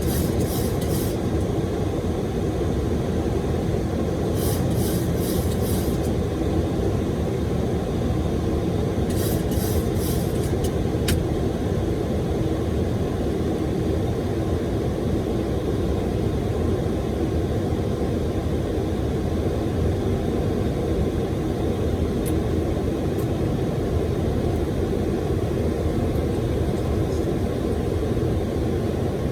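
Steady noise inside a Boeing 737 flight deck in flight: a constant rush of airflow and engine noise. A few short clusters of high, hissy pulses come through in the first ten or so seconds.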